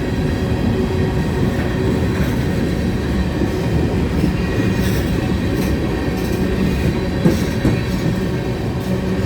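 Railroad cars of a passing train rolling by: a steady, loud rumble of wheels on rail with a few sharp wheel clicks a little past the middle.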